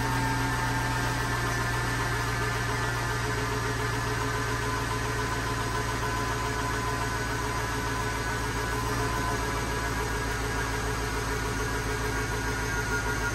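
Chevrolet Avalanche V8 engine idling steadily with a low, even hum, running on a freshly reconnected fuel line that is being checked for leaks.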